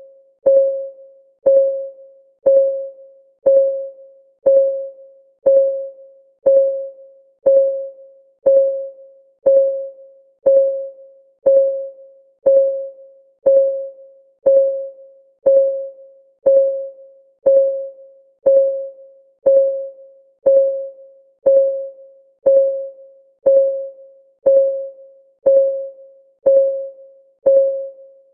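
Countdown timer's synthetic clock ticking: a short pitched tick about once a second, each ringing briefly on one mid note before dying away, perfectly regular.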